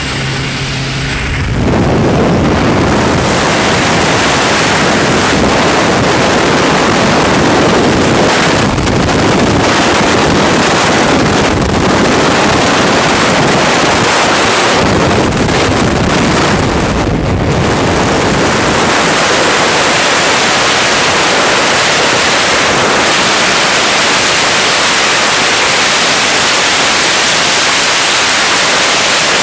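Jump-plane propeller engine hum that gives way, about a second and a half in, to loud wind rushing over the microphone in the propeller slipstream outside the aircraft. About eighteen seconds in it changes to the steady rush of freefall wind.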